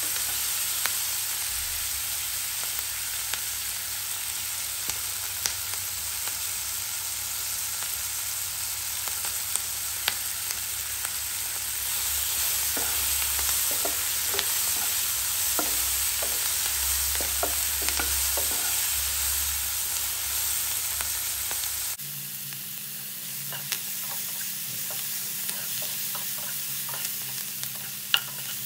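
Diced onion and tomato sizzling in hot oil in a non-stick pan, a spatula stirring through them with scattered light clicks and scrapes against the pan.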